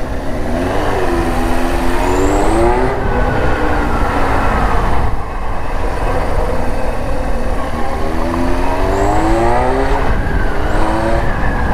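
Kawasaki KZ1000's carburetted air-cooled inline-four accelerating under load. The revs climb and then drop at a gear change, twice, with wind rushing over the microphone.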